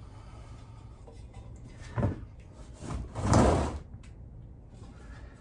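A Kawasaki Ninja 1000's rear tire and rim being handled by hand while the tire is worked off the wheel. There is a short knock about two seconds in, then a longer rubbing scrape of rubber against the rim about a second later.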